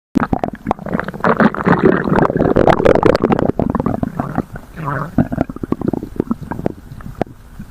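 Stomach growling and gurgling: a long, loud run of irregular rumbling gurgles and small pops for about the first three and a half seconds, then softer gurgling.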